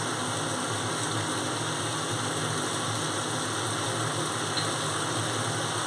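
Vegetables frying in oil in an aluminium kadai, a steady, even sizzle.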